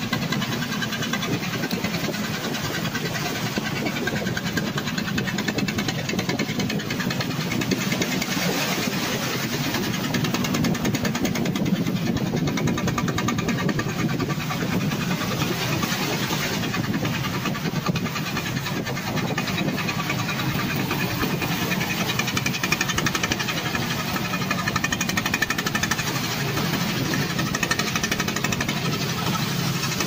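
A fishing boat's engine running steadily.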